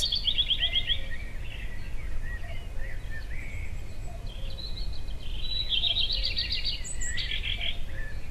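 Birds chirping and trilling over a steady low rumble of outdoor background noise, with quick rattling trills in the first second and again around six to seven seconds in.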